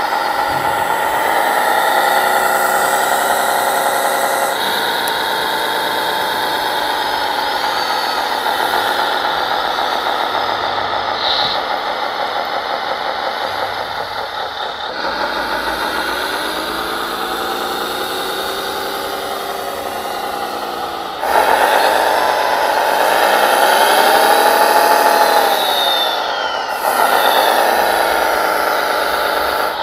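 Radio-controlled scale wheel loader working: a steady, engine-like running note with a higher motor whine, changing abruptly a few times. In the last third it grows louder and its pitch rises and falls in smooth sweeps as the machine works.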